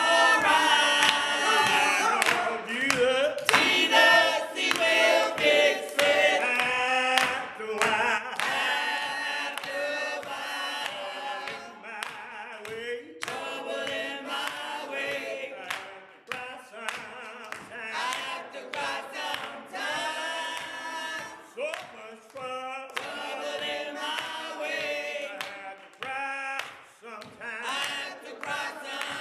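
A small mixed group of men and women singing a gospel song a cappella, with no instruments, in several voices together. The singing is loudest in the first several seconds and grows softer after that.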